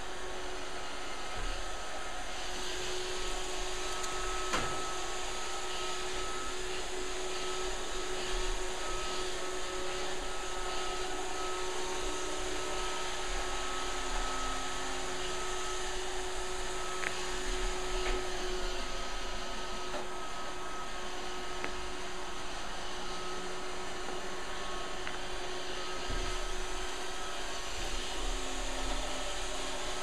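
Roomba robot vacuum running, a steady motor whir with a held whine that goes on throughout.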